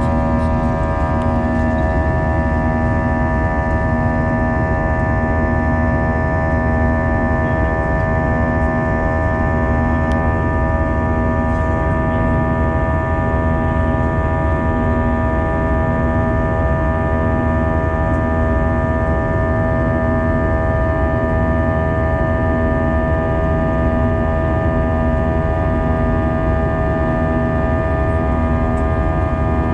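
Steady drone of a jetliner's turbofan engines heard inside the cabin during the climb-out after takeoff: a low rumble under several steady whining tones, with a faint throb about once a second.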